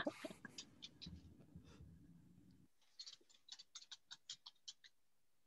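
Near silence, with a quick run of about a dozen faint clicks in the second half.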